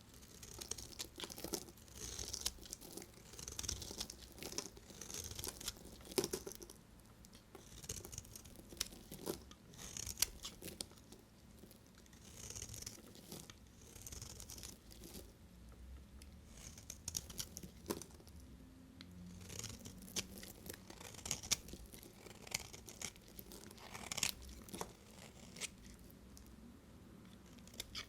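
Dry bar soap being cut with a knife: a run of crisp, irregular scrapes and crunches about every second or two, with small sharp clicks between them.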